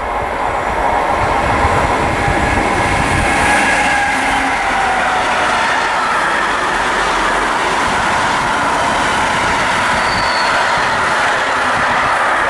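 An intermodal freight train of flat wagons loaded with lorry semitrailers rolling past close by: a steady, loud rumble of wheels on rail, with a few thin whining tones from the wheels riding over it.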